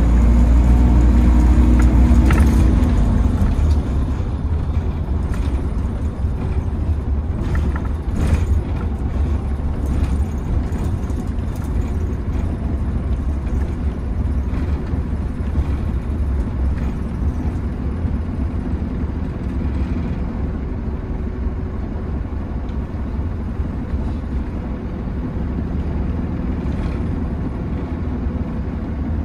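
Optare Versa single-deck bus heard from inside the passenger cabin: a steady engine drone and road rumble, louder for the first few seconds and then easing to a steady cruise, with a few light rattles of the interior.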